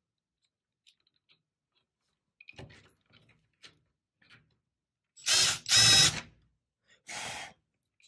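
Cordless drill driving a wall outlet's mounting screw into the electrical box in short bursts. A few faint clicks come first, then two quick loud runs about five seconds in, and a shorter, quieter run about a second later.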